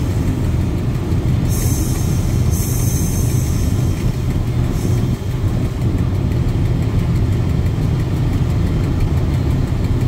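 Diesel passenger train running slowly along the track: a steady low rumble, with a brief high hiss twice in the first few seconds.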